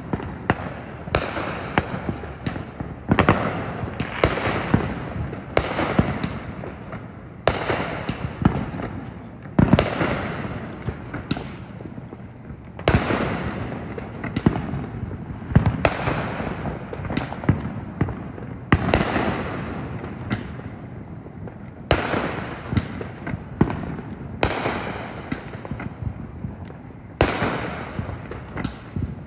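Aerial fireworks going off in quick succession: a long string of sharp bangs, roughly one every second or two, each trailing off, with smaller crackling pops in between.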